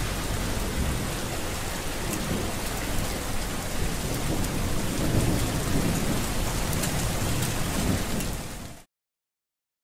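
Steady rainfall with scattered drop patter and a low rumble of thunder swelling about halfway through; it cuts off suddenly near the end, leaving silence.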